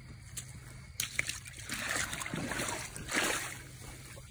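Water splashing and sloshing in the shallows at the river's edge as a hooked king salmon is pulled out of the water, starting about a second in and lasting a couple of seconds, with a few sharp splashes.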